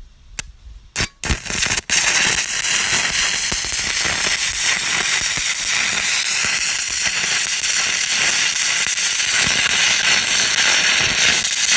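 Stick-welding arc on aluminum angle, burning an aluminum electrode on an inverter welder at about 75 amps, electrode positive. A few short sharp crackles in the first two seconds as the arc is struck, then a steady, loud frying crackle for about ten seconds that cuts off near the end as the arc is broken.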